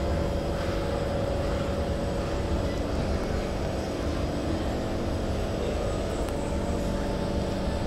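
Steady hum of a stopped SMRT C151 metro train standing at the platform with its doors open, its onboard equipment running, with a faint whine that fades about three seconds in and a higher one near the end.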